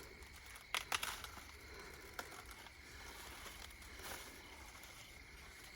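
Faint rustling of dry corn leaves and stalks being handled, with a few sharp crackles about a second in, as ears are picked from tall corn plants.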